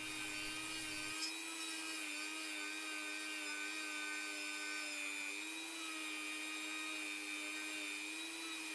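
Small handheld rotary tool running with a steady whine that wavers slightly in pitch, its little wheel working over a freshly welded aluminium winch bracket.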